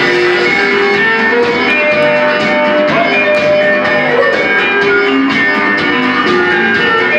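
Music with a plucked guitar melody over a steady beat.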